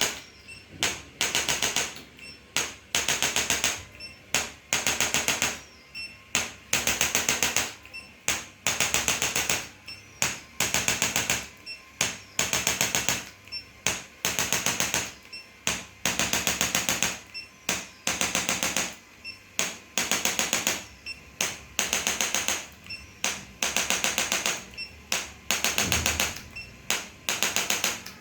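Handheld electric percussion adjusting instrument fired in repeated bursts of rapid mechanical taps, about one burst a second, each lasting from a fraction of a second to about a second.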